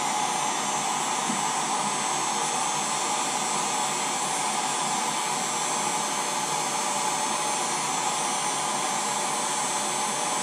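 Electric hot-air blower running steadily on its lowest setting, a continuous even whoosh with a fan hum, warming a vinyl wrap on a drone so that it softens and moulds to the shell.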